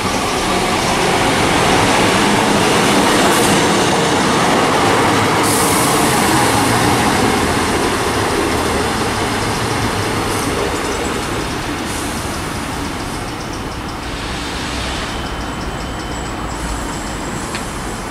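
Class 153 single-car diesel railcar running past on the line, its Cummins diesel engine and wheels on the rails loud a few seconds in and then slowly easing off. A faint high squeal appears near the end.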